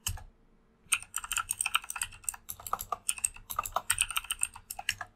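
Typing on a computer keyboard: one keystroke, a short pause, then a fast run of keystrokes from about a second in.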